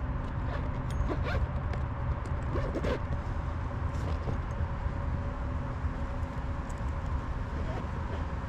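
Steady low rumble with a faint steady hum, and a few light clicks and rustles, about one, three and four seconds in, as a hand-held bass hangs from a lip gripper.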